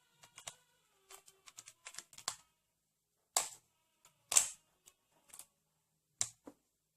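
A Rubik's cube being turned through a sequence of layer turns for an OLL algorithm: a run of irregular quick plastic clicks and clacks, with two louder clacks near the middle.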